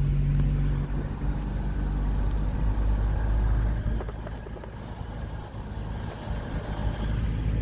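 Car engine and road noise, a steady low hum and rumble that eases off about halfway through and builds again near the end.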